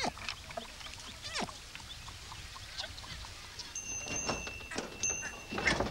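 Village outdoor ambience with scattered short bird calls, including one falling call about a second and a half in. From about three and a half seconds in, a steady high whine sets in together with a run of short knocks.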